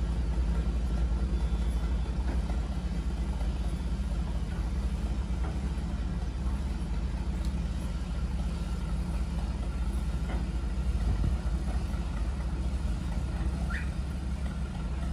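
A crane's engine running steadily with a low, even rumble while the crane lowers and swings a hanging load of ship's engine-room equipment.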